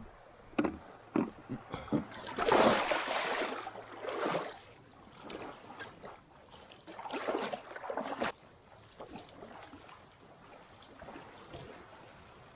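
A few knocks against a small fibreglass boat, then bursts of splashing and sloshing water as someone climbs off the boat into the shallows and wades, with quieter splashes afterward.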